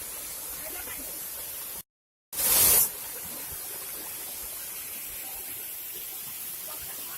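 Steady rush of a waterfall's running water. About two seconds in, the sound cuts out for half a second, then a brief loud burst of hissing noise follows before the steady rush resumes.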